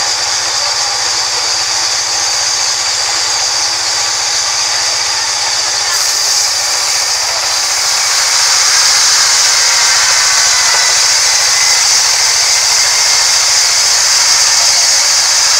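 Sawmill band saw running steadily as its narrow blade cuts lengthwise through a rain tree slab fed along the table, a steady high-pitched hiss of blade and sawdust. It gets a little louder about halfway through as the slab is pushed into the cut.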